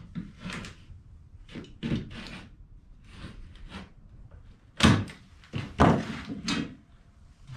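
Razor knife cutting a stiff plastic sheet with knobs on its underside along a straight edge: a series of short scraping strokes, with two louder sharp knocks about five and six seconds in as the tools are handled.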